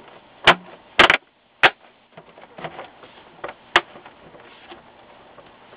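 Plastic front bezel of a Samsung 214T LCD monitor being snapped onto the case: a series of sharp clicks as the clips catch, about five loud ones within the first four seconds, with fainter ticks between.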